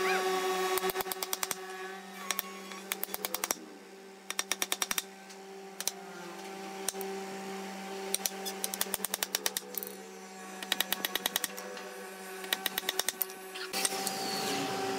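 Claw hammer tapping nails into a wooden chair frame, in several quick runs of sharp strikes with short pauses between them. A steady hum runs underneath.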